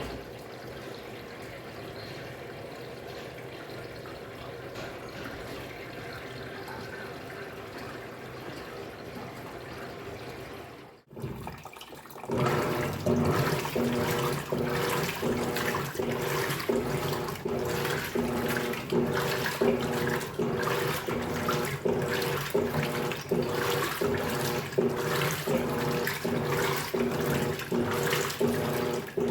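Electrolux Turbo Economia 15 kg top-loading washing machine running with water in the drum. For the first 11 seconds there is a steady, quieter water noise. After a sudden break, a louder wash comes in: a steady motor hum with rhythmic surges of churning water.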